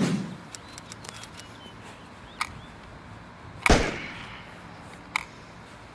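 Three sharp cracks over a quiet background: one about two and a half seconds in, the loudest just past the middle with a short ringing tail, and a last one near the end.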